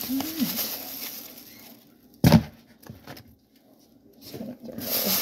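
Plastic meat packaging rustling and crinkling, with a short low vocal groan near the start. About two seconds in comes a single sharp thump as the raw pork ribs drop into a plastic mixing bowl, then more rustling near the end.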